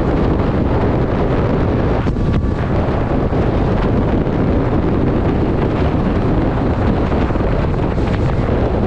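Heavy, steady wind noise on the microphone of a motorcycle cruising at highway speed, with the bike's running and road noise underneath.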